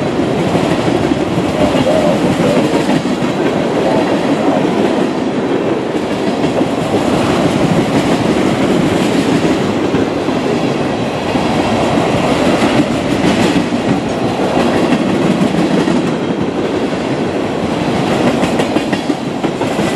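Loaded tank cars of a freight train rolling past close by: steel wheels on the rails making a steady, loud rumble.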